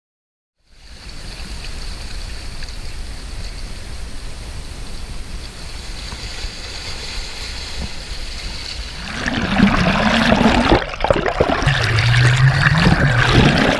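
Sea water washing over shoreline rocks as a steady hiss. About nine seconds in it turns louder and rougher: gurgling and sloshing water heard through an action camera dipped under the surface.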